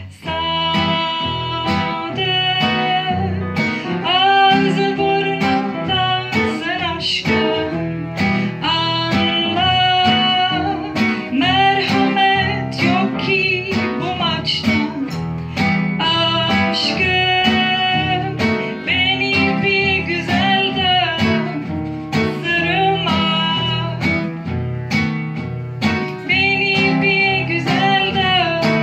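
A woman singing a song into a microphone, holding long notes with vibrato, accompanied by a plucked acoustic guitar.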